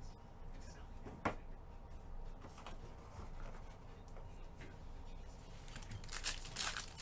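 Foil trading-card pack crinkling and tearing as it is picked up and ripped open near the end, after a few seconds of quiet handling with one sharp click about a second in.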